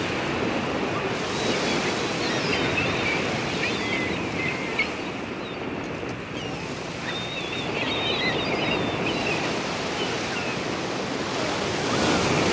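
Small waves breaking and washing up on a sandy beach, a steady rush of surf that swells and ebbs.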